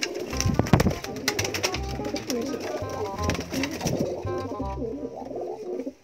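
Racing pigeons cooing in a loft, with a run of sharp clicks in the first two seconds.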